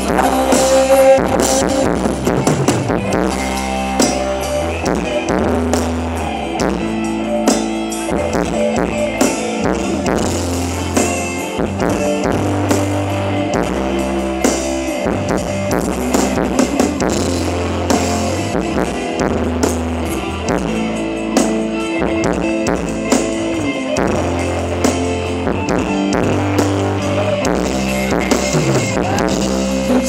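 Band music with drum kit, bass and guitar playing a steady dance beat, the bass moving between notes in a repeating pattern.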